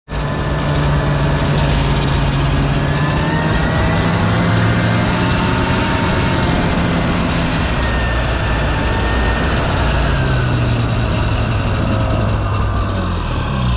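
Snowmobile engine running at speed under the rider, with a steady drone that slows down near the end as the machine comes to a stop.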